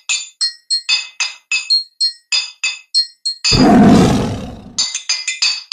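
Intro jingle of quick, bright glassy chime notes, about four a second. About three and a half seconds in they are broken by a loud tiger roar sound effect lasting just over a second, and then the chimes resume.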